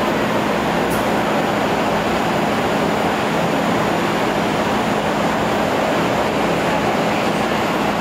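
Adtranz M4 subway train standing at an underground platform with its doors open, its onboard equipment giving a steady hum and rushing noise.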